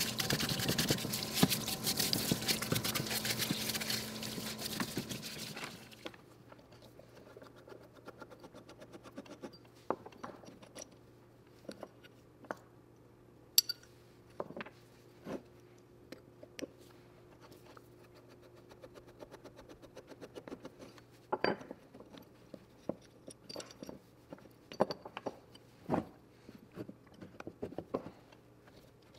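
A steady, hissing noise with a low hum cuts off suddenly about six seconds in. It is followed by light, scattered clicks, taps and scrapes of small hard parts being handled on a workbench.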